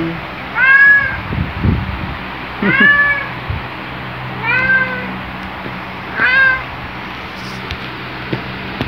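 A black domestic cat meows four times, short calls evenly spaced about every two seconds. This is its greeting on waking beside its owner.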